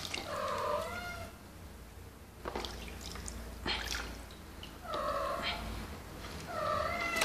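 Young ginger kitten meowing three times while being washed in a basin of water, each meow rising and then falling in pitch. Light splashes and clicks of water come between the meows.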